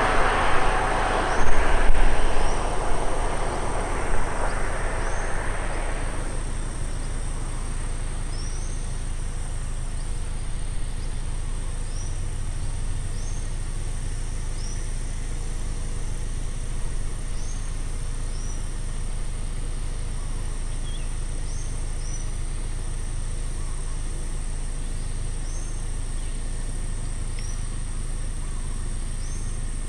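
Road-side ambience: a vehicle passes and fades away over the first few seconds, leaving a low steady rumble. Over it a steady high insect buzz, and a bird repeating a short high chirp every one to two seconds.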